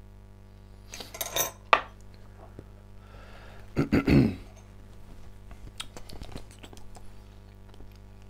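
A glass pipette and a small ceramic water jug clinking and knocking on a tabletop. There is a short rattle with a sharp click about a second in, then a louder knock as the jug is set down on a wooden board about four seconds in, and a few light clicks after.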